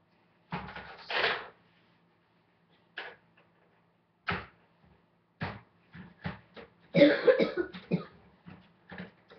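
Irregular plastic clicks and knocks as parts of a Nerf Longstrike CS-6 blaster are taken off and handled, with a louder burst of handling noise about seven seconds in.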